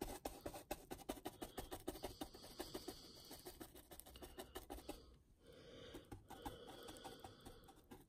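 Flat paintbrush dabbing and scraping AK Interactive Muddy Ground texture paste onto a model base. It makes a fast run of faint scratchy ticks, with a short pause about five seconds in.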